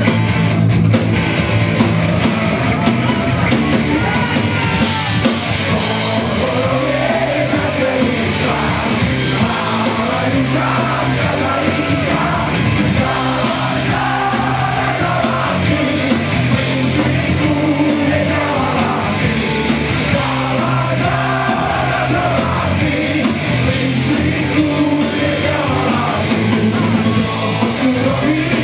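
Live rock band playing: electric guitar, bass and drums with cymbals, with a singer's voice over them.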